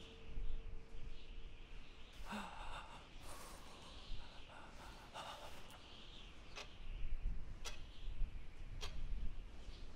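A young man's sharp, ragged gasps about two to five and a half seconds in, followed by slow single ticks of a pocket watch, roughly one a second, over a low rumble.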